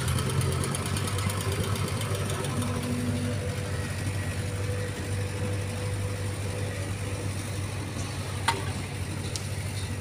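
Vibratory plate compactor running steadily as it is walked over soil to compact it: a small engine's hum with the plate's vibration. A single sharp knock about eight and a half seconds in.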